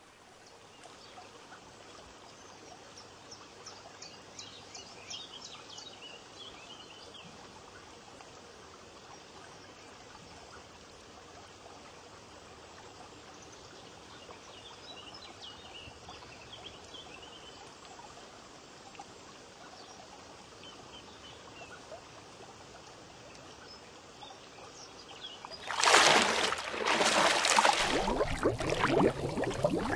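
Faint trickling stream with a few scattered bird chirps. About 26 s in, a much louder rush of water noise starts suddenly.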